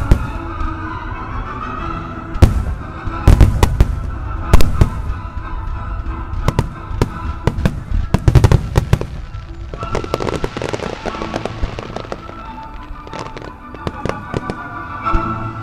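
Starmine fireworks display: quick clusters of aerial shell bursts banging through the first half, then a stretch of dense crackling about ten seconds in, with music playing underneath throughout.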